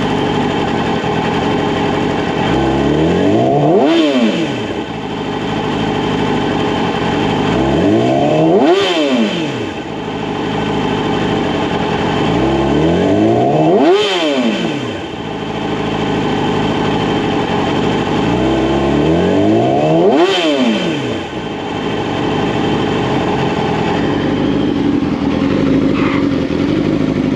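2012 Yamaha YZF-R6's 599 cc inline-four engine idling and being blipped four times, each rev climbing quickly and falling straight back to idle.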